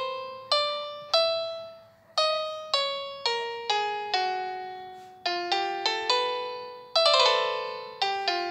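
Solo piano background music: slow, separate notes, each struck and left to ring and fade, with a louder cluster of notes about seven seconds in.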